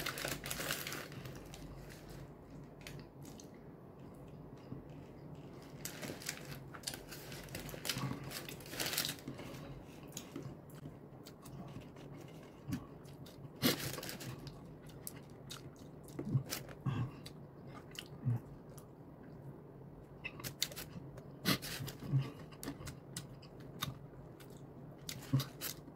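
A person biting into and chewing a fried fish fillet sandwich, with scattered soft crunches and clicks.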